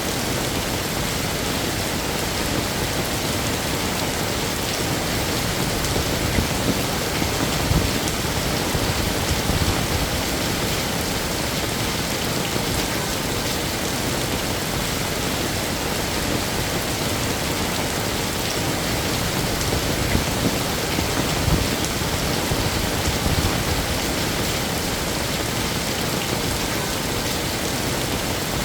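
Heavy rain falling steadily, a dense even hiss of drops, with a few soft low thuds now and then.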